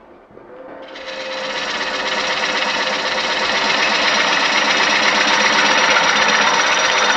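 Fingernail-ground Superflute bowl gouge making a truing-up cut on a spinning bowl on a wood lathe: a rough, steady cutting noise. It starts quietly about half a second in and builds up over the next second or two.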